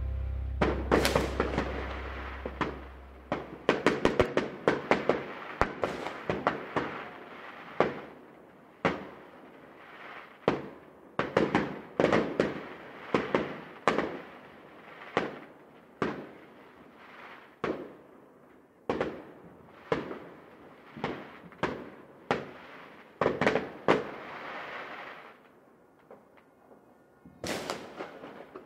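Fireworks going off: a long string of sharp bangs and crackles at irregular intervals, each trailing off in a short echo, growing sparser near the end. A low note left from the music fades away in the first few seconds.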